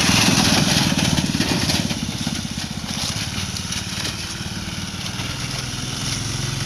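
Custom ATV's 5 hp small engine running, a fast stream of firing pulses; it is louder for the first two seconds, then drops to a lower, steady running level.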